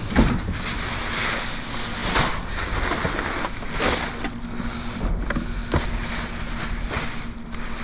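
Plastic trash bags and cardboard rustling and crinkling as they are handled and pushed aside, with irregular sharp crackles and knocks. A faint steady low hum runs underneath.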